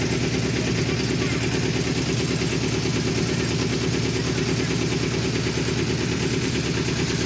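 Boat engine running steadily with a low, rapid, even chug.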